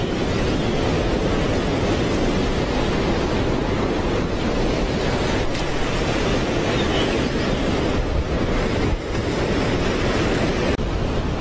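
Surf breaking and washing over rocks, with wind buffeting the microphone: a steady rush of noise.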